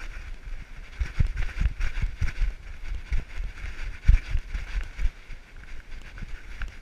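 Camera jostled and rubbing against an animal's fur: irregular low thumps and bumps over a steady rustling hiss.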